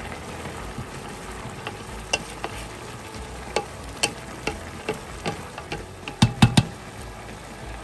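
Wooden spoon stirring boiled cumin rice in a metal pot, knocking against the pot at irregular moments, with the loudest knocks in a quick cluster about six seconds in. Under it runs a steady sizzling hiss of the rice on the heat, boiled about 85% done with most of the water absorbed.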